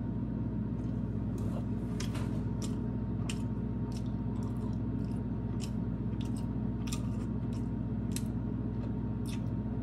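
A person chewing oily canned sardines, with irregular small wet clicks and squelches from the mouth. A steady low hum runs underneath.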